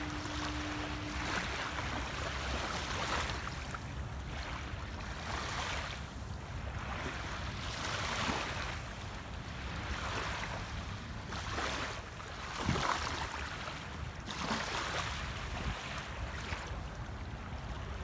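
Small waves lapping on a sandy beach, each gentle wash swelling and fading every second or two, over a low rumble of wind on the microphone.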